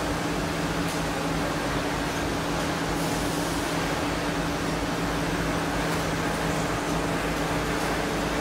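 Automated quilt-making machinery running steadily: an even mechanical hum with low steady tones underneath.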